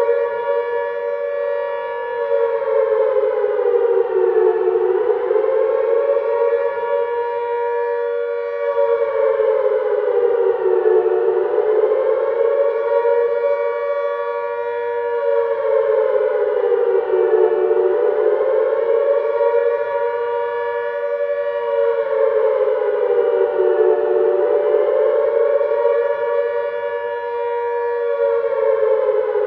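Civil defense air raid siren wailing, its chord of tones slowly rising and falling in pitch about every six and a half seconds without a break.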